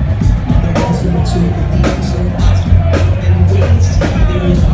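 A live rock band playing, with a steady drum beat over heavy bass.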